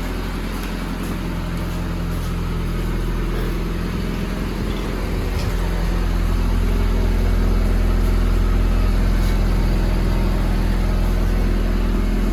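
2000 Honda Civic on the move, heard from inside the car: a steady low drone of engine and road noise that grows louder about halfway through as speed builds. It is the running noise being chased on this test drive, which the crew suspects comes from a tyre.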